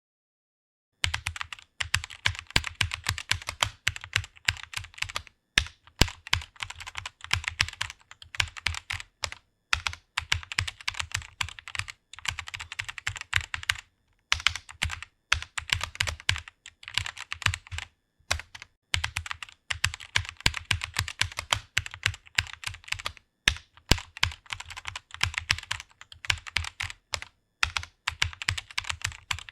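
Fast typing on a computer keyboard, a quick run of key clicks starting about a second in and breaking off briefly every few seconds.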